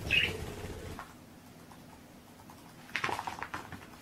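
A brief high chirp right at the start, then a run of light taps and patter from a cat's paws on a parquet floor near the end as it pounces after a laser dot.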